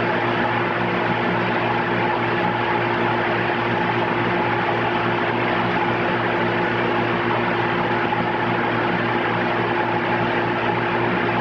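Steady electrical or mechanical hum with a constant hiss and a few fixed tones, unchanging throughout.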